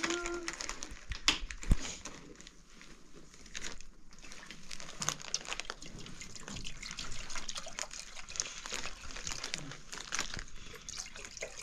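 Irregular rustling and crinkling with small clicks and knocks, the sharpest two about a second and a half in.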